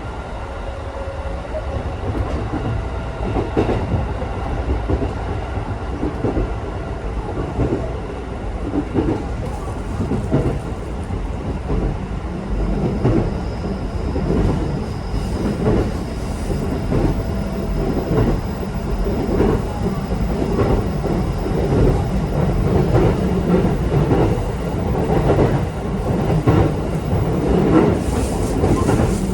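Electric local train running on the line, heard from inside the passenger car: a steady rumble, with the wheels clicking over rail joints in a repeating rhythm. A faint high motor whine comes in about the middle.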